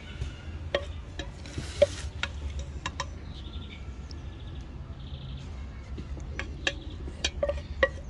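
Wooden spoon knocking and scraping lightly on a ceramic plate and potatoes, a scatter of sharp clicks, with a brief rustle about two seconds in. Faint high chirps twice in the middle over a low steady hum.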